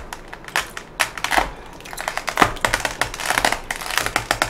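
Close-miked eating and food handling: a run of irregular crackles and clicks, busiest in the second half.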